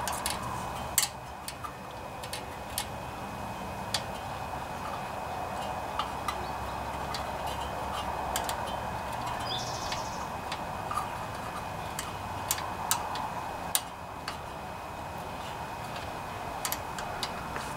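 Irregular light metallic clicks and taps of a small wrench on the exhaust rocker arm's adjuster and lock nut of a Honda GCV190 engine as the valve clearance is set, the sharpest about a second in, over a steady low background noise.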